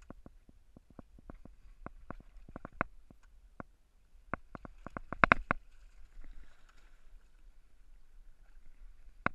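Irregular sharp knocks and slaps over a low rumble on a small open boat rocking on sea waves, with a loud cluster of knocks about five seconds in. The outboard is not running.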